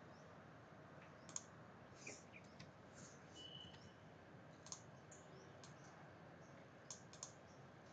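Computer mouse clicks: about half a dozen short, sharp clicks a second or more apart over a faint steady hiss, as points and lines are picked in a CAD program.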